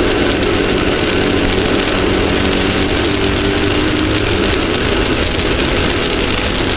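Off-road race vehicle's engine running steadily under way, heard through a vehicle-mounted camera over a dense, loud hiss of wind and terrain noise. The engine note holds nearly level, dipping slightly around the middle.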